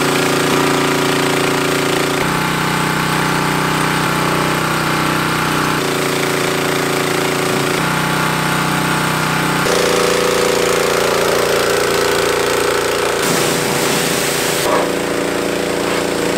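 Gasoline-engine pressure washer running steadily under the hiss of its spray wand, its engine pitch stepping up or down several times.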